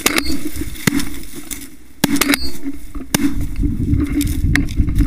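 Canada geese honking close by over a low rumble of wind and handling on a shotgun-mounted camera as the gun is swung up toward the flock. Several sharp knocks are heard.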